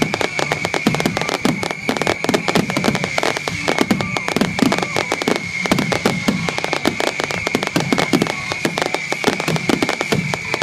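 Fireworks finale: a continuous, dense barrage of shell bursts and crackling, many bangs a second with no let-up.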